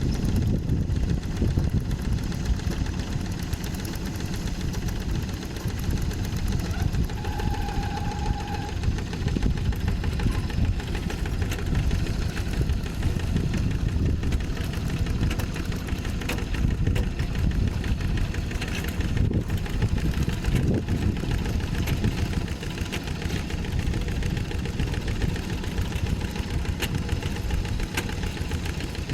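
Tractor diesel engine running steadily under ploughing load, with its low knocking beat. A short steady tone sounds for about a second and a half, about seven seconds in.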